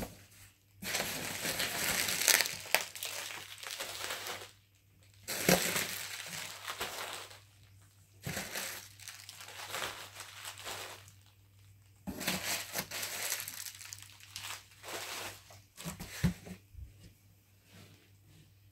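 Bubble wrap crinkling and rustling as bubble-wrapped packages are picked up and shifted, in about five bouts of a few seconds each with short pauses between.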